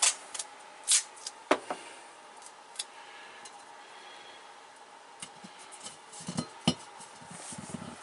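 Thin metal dryer duct tube being handled, giving a few sharp clinks and taps in the first couple of seconds and again later on, with soft handling noise between.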